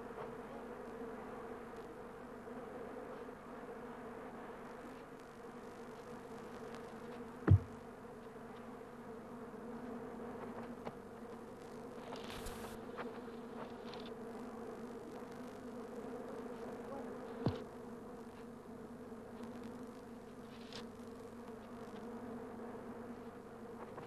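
Honeybee colony humming steadily from beehives that a black bear has broken open. Two sharp knocks stand out above the hum, one about a third of the way in and one about two-thirds in.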